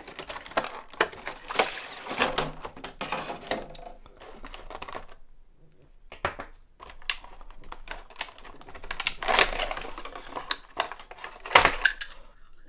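Clear plastic packaging box and a cardboard backing card being handled as pliers are unpacked: a string of plastic clicks and crinkles. There is a short lull about five seconds in, and the loudest handling comes near the end.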